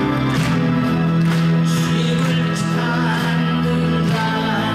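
Live music: a man singing while strumming an acoustic-electric guitar, with long held notes.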